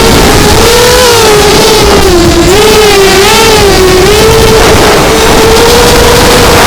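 Emax NightHawk 200 quadcopter's four EMAX 2205 2300KV brushless motors spinning 5045 bullnose props on a 4S battery in flight. The whine wavers up and down in pitch with the throttle and sits over a constant rush of wind and prop noise.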